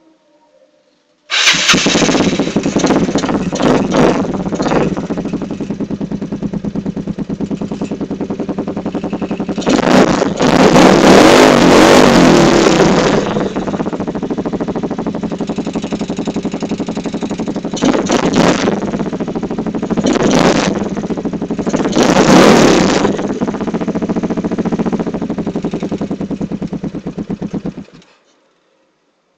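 Yamaha Mio scooter's single-cylinder four-stroke engine through a loud aftermarket Nobi exhaust: it fires up abruptly, runs at a fast idle, and is revved hard several times, one long rev then three short blips, before cutting off near the end.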